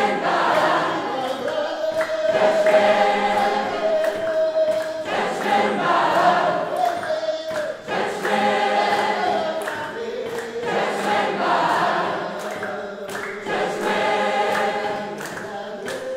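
A large mixed group of people singing together, repeating the same short melodic phrase over and over.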